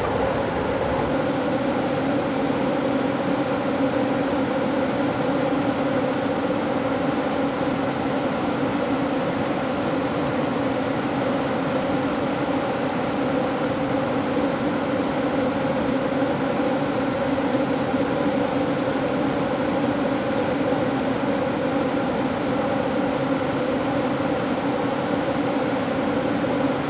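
Steady hum and rushing rumble inside a moving passenger train car, unchanging throughout.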